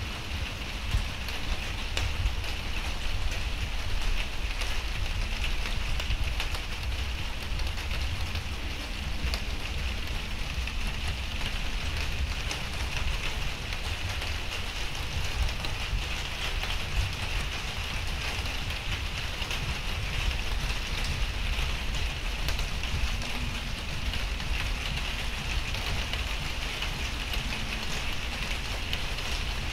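Steady rain falling: a dense, even hiss dotted with sharp drop ticks, over a low rumble.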